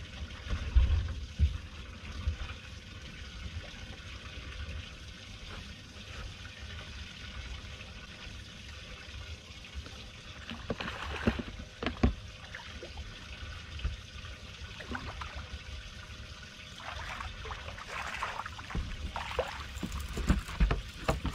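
Water trickling and lapping against a bass boat's hull, with a few low thumps about a second in. Near the end it turns to splashing as a hooked striped bass is brought to the boat and swung out of the water.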